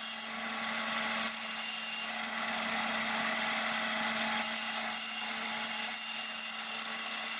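A power tool's motor running steadily with an even drone and a constant hum, in a woodworking shop.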